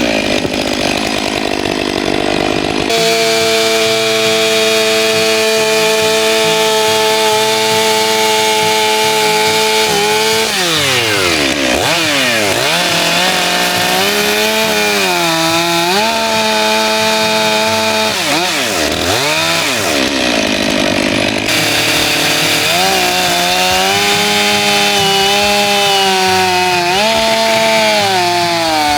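Chainsaw running at high revs while carving into a wooden log. From about a third of the way in, the pitch dips and climbs back again and again as the chain bites into the wood and is eased off.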